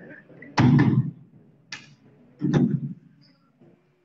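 Handheld microphone being handled: a few sharp knocks and thumps, two of them loud, with a faint rubbing rumble between them.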